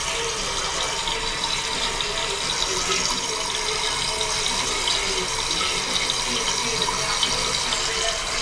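Water running into a 1994 Crane Galaxy Lite toilet's tank as it refills after a flush: a steady rush of water.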